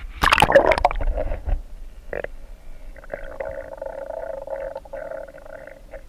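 Splashing and churning as a camera plunges under water, then muffled underwater gurgling with a wavering tone from about three seconds in.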